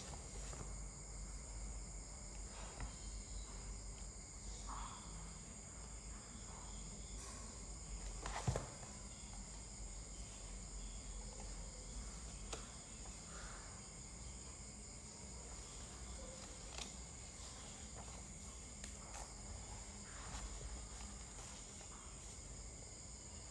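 Faint background noise: a steady high-pitched hiss with a low hum underneath and a few scattered faint clicks, one a little louder about eight and a half seconds in.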